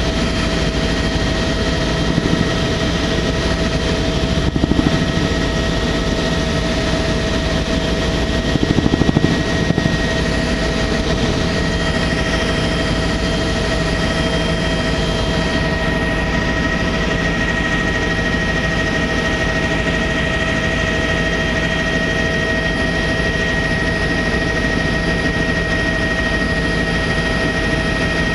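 Sightseeing helicopter in flight, heard from on board: steady turbine whine and rotor noise. It swells briefly twice, about four and nine seconds in.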